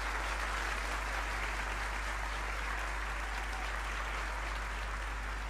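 Theatre audience applauding steadily after the band's number ends, fading slightly toward the end.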